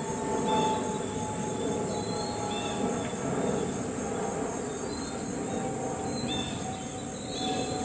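Steady high-pitched chorus of crickets with a fast, even pulsing trill, over the low rush of river water running over stones. A few short high chirps come and go.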